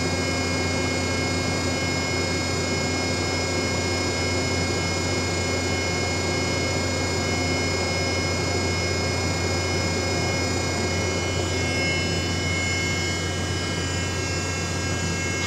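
Ship's hydraulic deck crane running steadily: a constant low drone from its power unit with several steady high whining tones over it.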